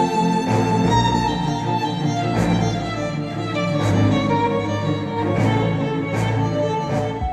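Cinematic music with violins and a string section over a beat, with a hit about every second and a half, played through Focal Chora 806 bookshelf speakers driven by a NAD C 328 integrated amplifier. At the very end it changes abruptly to a sparser piece.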